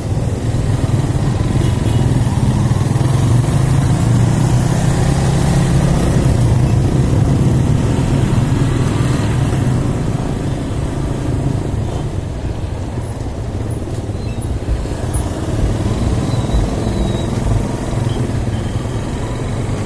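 Motorcycle engine running while riding slowly through town traffic, a steady low engine note under road and wind noise, a little louder in the first several seconds.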